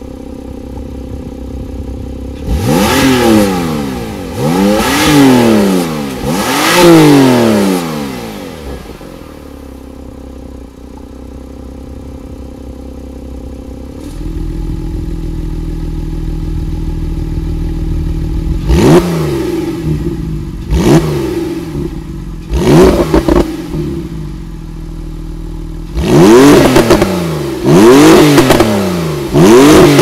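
Porsche 991.2's twin-turbo flat-six revved while parked through its factory Porsche Sports Exhaust. Three revs to about 4,000 rpm with the exhaust valves closed, then the idle turns deeper about halfway as the valves open, followed by three quick blips and three more revs toward 7,000 rpm near the end.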